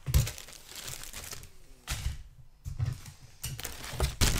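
Clear plastic bag holding plastic model kit sprues crinkling as it is handled, in several sharp rustling surges.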